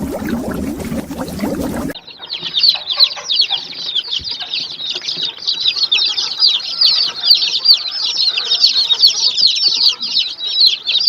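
A brood of baby chicks peeping: many rapid, overlapping, high, downward-sliding peeps in a continuous chorus. It starts abruptly about two seconds in, replacing a lower, denser animal sound that cuts off.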